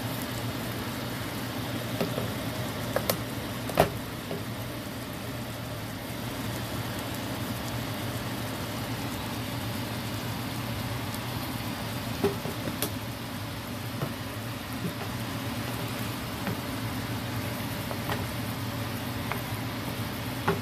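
Chicken pieces simmering in a garlic butter sauce in a pan: a steady bubbling sizzle over a low steady hum, with a few light knocks, the loudest about four seconds in.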